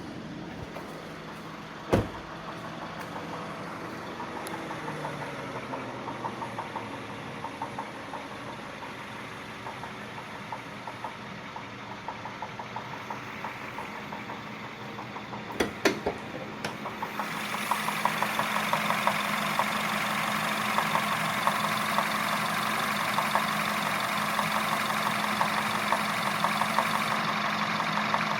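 Peugeot 508's 1.6 THP turbocharged four-cylinder petrol engine idling with a fast, even knocking tick, the knock the owner is showing. A single thump about two seconds in and a couple of sharp clicks later; from about two-thirds of the way through the engine and its ticking sound louder and brighter.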